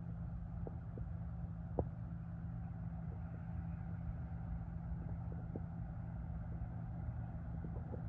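John Deere combine harvester running as it cuts wheat: a steady low engine drone, with a few light clicks, the most distinct about two seconds in.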